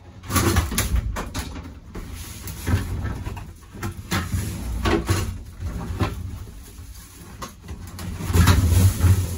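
Irregular rustling, scraping and knocks of a truck cab's overhead panel and the loose mouse-nest debris on it being handled, louder about eight seconds in.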